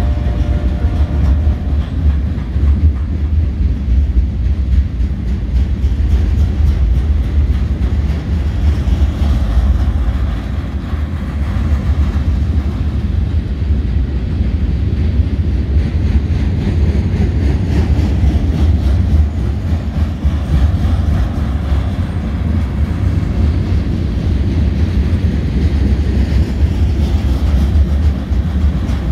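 Loaded freight flatcars rolling steadily past at close range: wheels running on the rails with a continuous low rumble and rattle.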